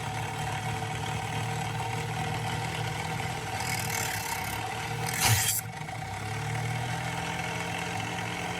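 Cordless electric knife sharpener's motor running with a steady hum, its diamond grinding wheel spinning. There is a brief grinding hiss about four seconds in and a short, loud scrape about five seconds in as a blade is drawn through the sharpening slot.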